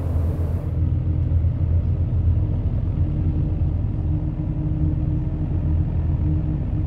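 Deep, steady drone from giant steel pipes sounded by gas burners, with a fainter steady tone held above it. A short hiss of a burner firing ends about half a second in.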